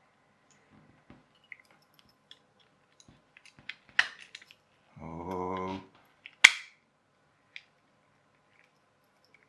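Clear plastic parts of a clockwork toy car clicking as an axle and gears are pushed into the chassis, with two sharp snaps about four and six and a half seconds in. Between them comes a steady low buzz lasting about a second.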